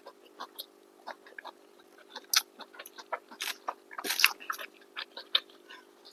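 Close chewing and mouth sounds of people eating chicken biryani: many small irregular wet clicks and smacks, with one louder burst about four seconds in.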